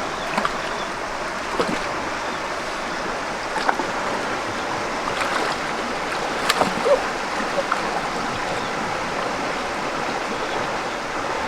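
Steady rush of flowing stream water, with a few scattered light clicks and knocks over it.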